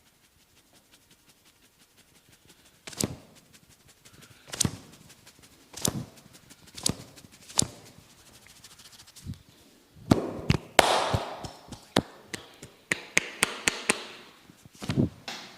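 Massage percussion: open hands slapping and tapping on skin. Faint quick tapping, then about five sharp slaps roughly a second apart, a couple of seconds of rubbing with quick clicks, then a fast run of slaps ending on a heavier one.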